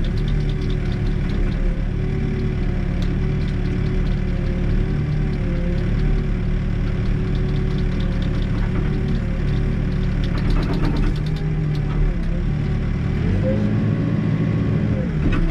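Backhoe's diesel engine running under hydraulic work, its pitch wavering as the bucket is worked. A short clatter about ten seconds in, and the engine pitch rises and holds briefly about thirteen seconds in before dropping back.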